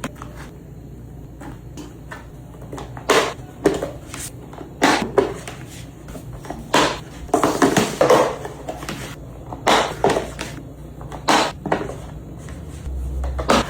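Irregular knocks and clatters of objects being handled, about ten sharp sounds spread unevenly, over a steady low hum.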